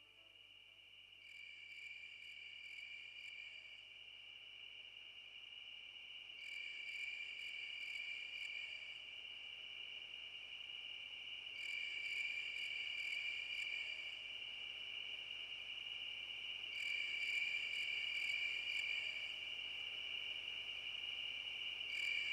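Crickets chirring: a steady high trill with louder bouts of chirping about every five seconds, growing gradually louder.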